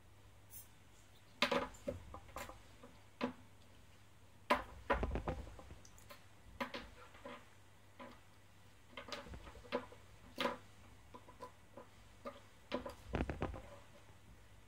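Hands handling small plastic robot parts and servo motors on a wooden table: irregular clicks and knocks as the parts are fitted together and set down, over a faint low hum.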